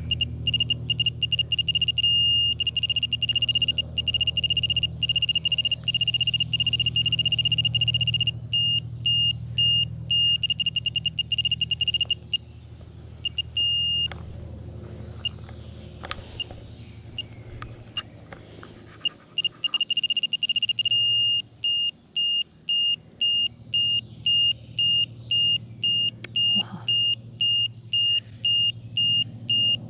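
automess 6150 AD 6/E radiation dose-rate meter beeping with a high, shrill tone. Early on the beeps run together into an almost continuous tone, then they break up into rapid pulses. From a little past halfway they settle into separate beeps about twice a second. The beep rate follows the radiation the probe is picking up. A low steady hum sits underneath until a little past halfway.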